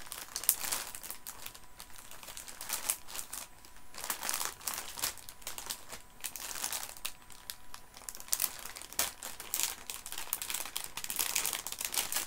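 A sweet packet crinkling as it is handled: a dense, irregular run of crackles.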